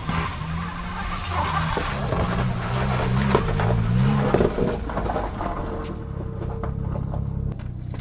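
Saturn Ion's 2.2-litre four-cylinder engine revving up and down as the car works its way out of packed snow and ice, with the noise of its tyres on the snow. After about six seconds it settles to a quieter, steady engine hum as the car pulls away.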